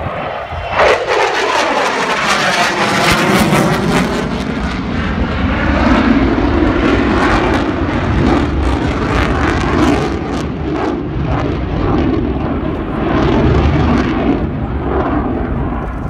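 F-16 fighter jet flying past, its engine roar rising sharply just after the start and staying loud throughout, with a sweeping, phasing swirl through the roar over the first few seconds as it passes.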